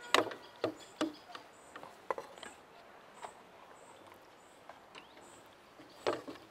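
A serving spoon knocks and scrapes against a steel cooking pot and frying pan as chicken stew and rice are dished onto a plate: a handful of sharp clinks, loudest near the start and again near the end. Faint high chirps repeat steadily in the background.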